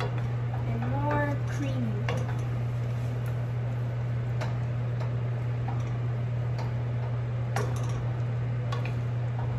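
A wooden spatula stirring a skillet of cream sauce, with a few sharp clicks as it knocks against the metal pan, over a steady low hum.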